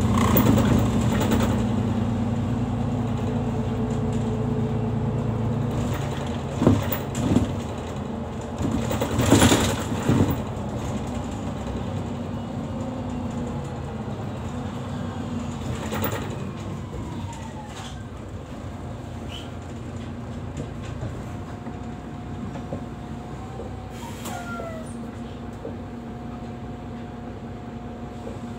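Inside a moving Mercedes-Benz city bus: steady engine and road noise, with a few loud knocks and rattles about a third of the way in. Then the engine note falls away and it gets quieter as the bus slows in traffic, with a steady whine in the last few seconds.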